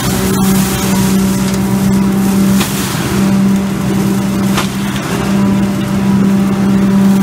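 Truck-mounted leaf vacuum running: its engine and suction fan make a loud steady drone with a strong low hum over a rush of air through the hose. The hum dips briefly twice.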